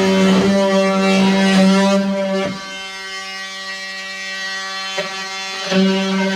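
Oscillating multi-tool running with a steady, high buzz while trimming the uneven wood of a damaged stair nose. The buzz drops in level about two and a half seconds in and comes back up shortly before the end.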